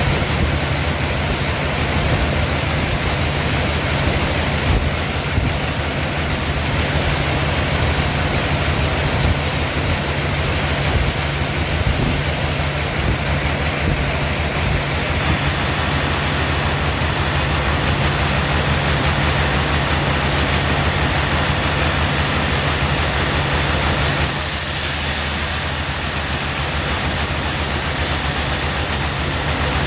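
Sawmill machinery running steadily: a loud, dense, even noise over a low hum, which changes character about 24 seconds in.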